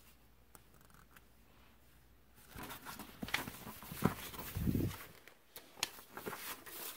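Paper sheets rustling and crinkling as they are handled and unfolded, starting about two and a half seconds in after a quiet start, with a low thump near the middle.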